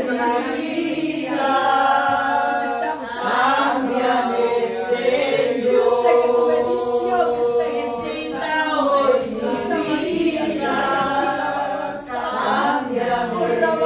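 A small group of voices singing a worship song together, in long held phrases that swell and break every few seconds.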